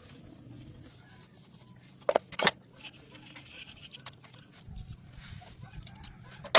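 Sharp metallic clinks, two close together about two seconds in and another near the end, over a low steady hum.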